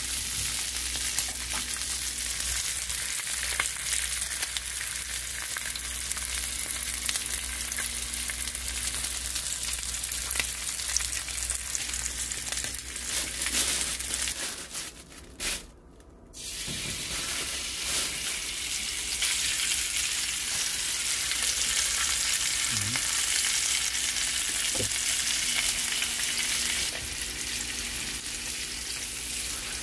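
Slices of pork belly sizzling and spattering in hot fat in a frying pan, a steady hiss. The sizzle drops out briefly about halfway, then resumes.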